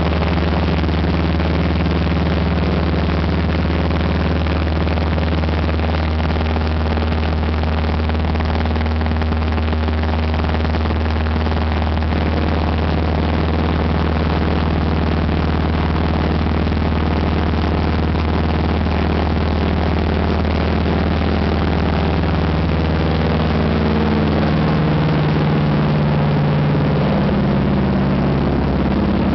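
De Havilland Canada DHC-2 Beaver float plane's engine and propeller, heard loud inside the cabin, running steadily on the water. About three-quarters of the way through the note rises and gets a little louder as power comes up for the takeoff run.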